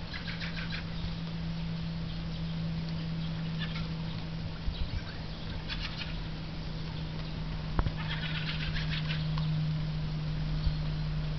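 Fieldfares giving harsh, rattling chack calls in several short bursts, the longest about eight seconds in, over a steady low hum. A single sharp click comes just before the longest burst.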